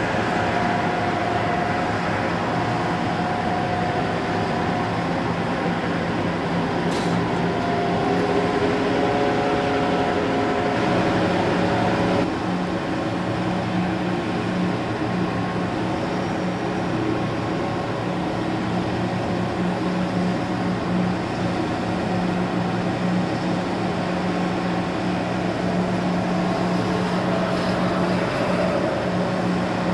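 Towboat diesel engines running, a steady mechanical drone with a strong low hum and fainter higher tones. The sound changes abruptly about twelve seconds in, then carries on as a steady hum.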